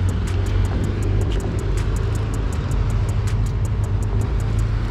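Car traffic passing close by on a street, a steady low engine and road rumble.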